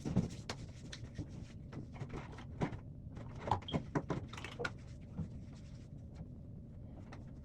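Scattered light clicks and taps of small objects being handled, irregular and brief, with a few louder ones about two and a half and three and a half seconds in.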